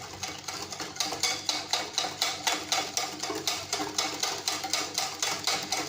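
Hand whisk beating a runny mix of eggs, sugar, oil and milk in a bowl, tapping against the bowl about four or five times a second.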